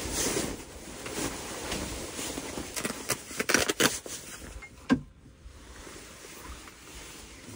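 Clothing rustling as a synthetic jacket is pulled off and handled, with a cluster of sharp crackles about three to four seconds in and a single knock about five seconds in.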